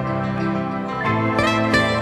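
Background music: a calm instrumental with sustained notes that shift to a new chord about halfway through.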